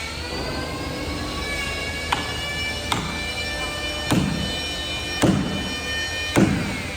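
A machine motor running with a steady whine rich in overtones, dipping in pitch and recovering early on. From about two seconds in, sharp knocks come a little more than once a second and grow heavier toward the end.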